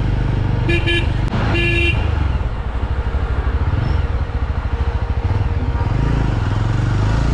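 Yezdi motorcycle engine running under the rider, with a vehicle horn about a second in: two short toots, then a longer blast.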